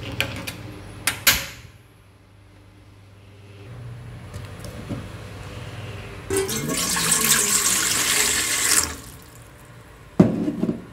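A gas stove's knob is turned, with a few sharp igniter clicks in the first second or so. About six seconds in, water is poured from a jug into a stainless-steel stockpot for a couple of seconds, followed by a clunk near the end.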